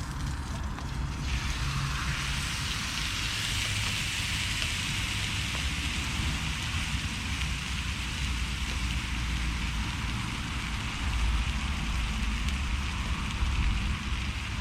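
Thick steak sizzling in a hot pan, the sizzle starting suddenly about a second in and then running on steadily, over a low rumble of road traffic.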